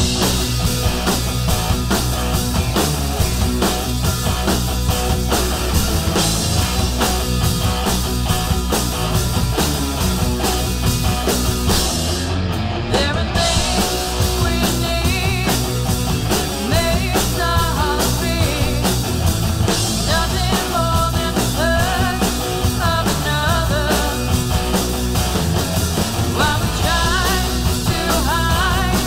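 A rock band playing a hard-rock song: electric guitars, bass and drums with a steady beat, and a female lead vocal over them in the later part.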